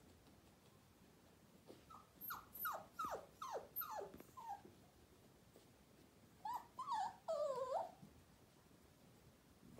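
10-week-old miniature poodle puppy yipping: a quick run of about eight short, high yips that each drop in pitch, then after a pause a few longer, wavering whiny yelps.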